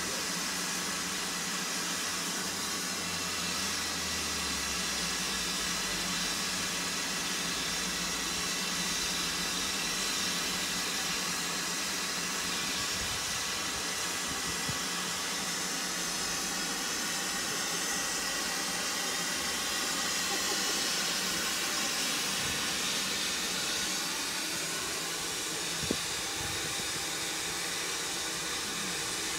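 Ivatt Class 2MT steam locomotive standing, with a steady hiss of escaping steam. A single sharp click near the end.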